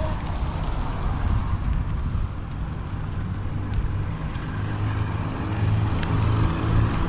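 Vehicle engine running with road rumble; about four seconds in a steadier low engine hum sets in and grows louder.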